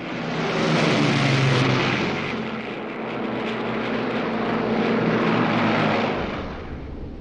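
Piston engines of a four-engine propeller bomber passing low overhead: a loud engine drone with a steady low hum that rises in quickly, swells twice and fades away near the end.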